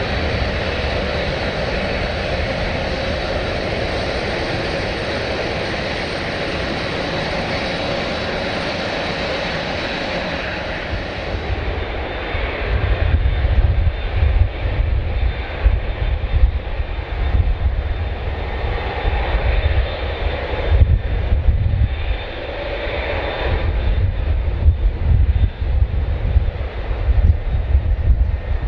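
Jet airliner engines running loud: a steady rush with a thin high whine, which drops away about twelve seconds in, leaving a low, uneven rumble.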